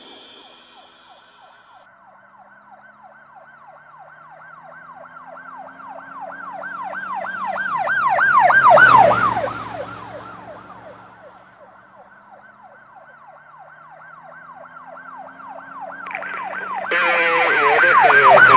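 Emergency-vehicle siren in a fast yelp, about four wails a second. It grows louder to a peak about nine seconds in, fades away, then builds again near the end, with a hiss joining it.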